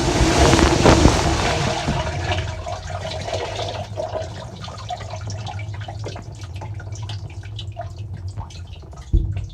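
Water spraying inside a dishwasher, dying away over the first couple of seconds into scattered drips over a steady low hum. A short thump comes near the end.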